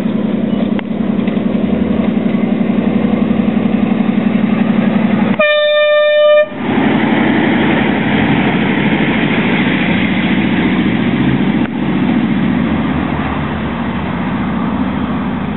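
Ride-on miniature Intercity 125 locomotive running past on its track with a steady pulsing engine drone, sounding one short horn blast about five seconds in. After the horn, a rougher, brighter running noise follows as the train passes close by.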